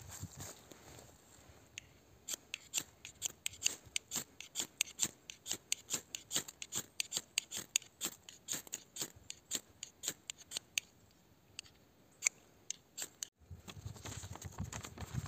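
Spine of an 8Cr14MoV steel knife scraped hard down a ferro rod (firesteel) to throw sparks, in a rapid series of short scraping strokes, about three a second, that stop about eleven seconds in. After a break, a low rustling follows near the end.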